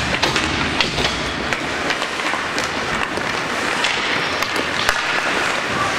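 Youth ice hockey play: skate blades scraping the ice, with scattered sharp clicks of sticks and puck over a steady hiss of rink noise.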